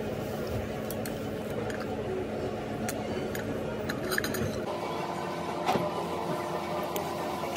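Cutlery clinking lightly against a plate during a meal, a few short clicks about three, four and six seconds in, over steady restaurant background noise.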